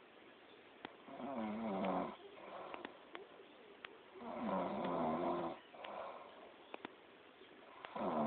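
Loud snoring from a sleeper: a rattling, pitched snore on each breath about every three and a half seconds, two full snores and a third starting near the end. Softer breathing and a few small clicks come in between.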